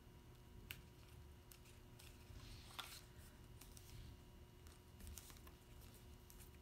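Faint paper handling: small clicks and taps of cardstock pieces being picked up and pressed flat by hand, with a brief rustle of paper about three seconds in.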